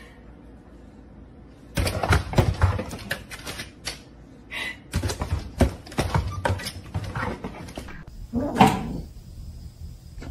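Hard plastic panels of a pet door clattering and knocking as a dog paws and pushes at them, in fast runs of clicks. A short voice-like sound comes near the end.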